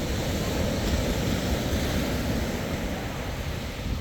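Sea waves breaking and washing up a sandy beach, a steady surf rush that swells slightly midway, with wind rumbling on the microphone.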